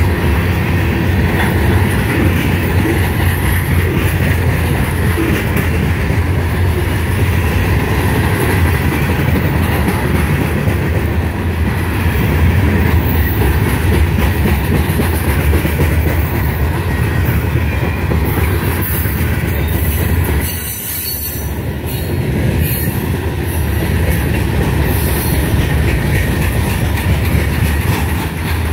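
Loaded covered hopper cars of a freight train rolling past close by: a steady heavy rumble of steel wheels on rail, with clicking over rail joints and some wheel squeal as the train takes the connection track.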